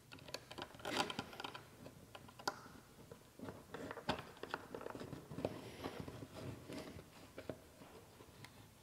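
Faint, scattered clicks and taps of HO-scale Bachmann EZ Track being worked by hand: a metal rail being pressed into the plastic roadbed's tie clips and the small track piece knocking against the board.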